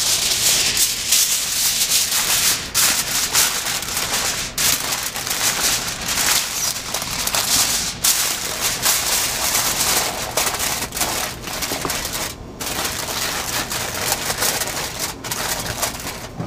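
Heavy-duty aluminum foil crinkling and rustling as it is folded and crimped around slabs of ribs, going on and off with a few brief pauses.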